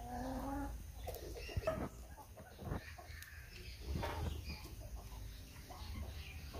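Brahma chickens clucking, a handful of short calls spaced through, the first a slightly longer one with a clear pitch.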